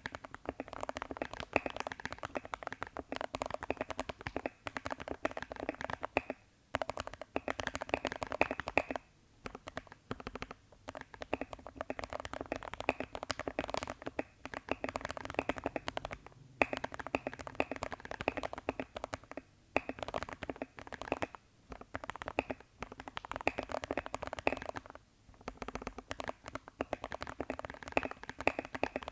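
Continuous typing on a Keychron K6 aluminium mechanical keyboard with lubed Gateron G Brown switches and foam-dampened plate and PCB: rapid key clicks in runs of a few seconds, broken by short pauses.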